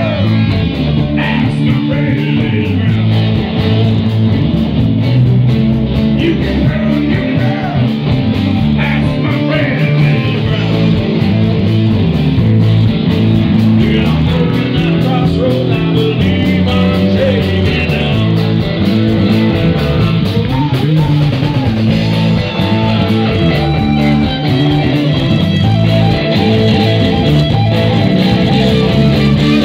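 Live rock band playing, loud and steady: electric guitars over a drum kit.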